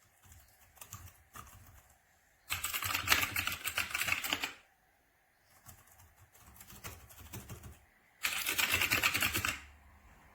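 Fast typing on a TECURS 60% mechanical keyboard with clicky blue switches. It comes as two loud rapid bursts of keystrokes, with lighter, sparser typing before and between them.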